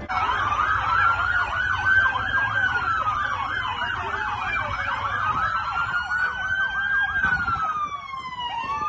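Police siren wailing, its pitch slowly rising and falling twice, with a fast yelping siren sounding over it for about the first half.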